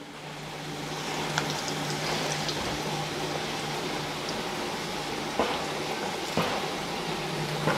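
Kappa bonda (batter-coated cassava balls) sizzling as they deep-fry in hot sunflower oil in a kadai, the sizzle building over the first second, with scattered crackling pops.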